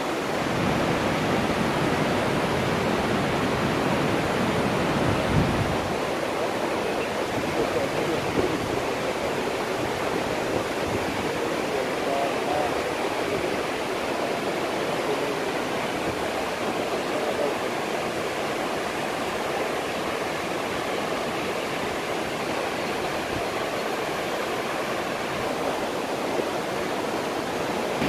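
Waterfall with many cascades pouring down a cliff face into a rocky stream: a steady, even rush of falling water.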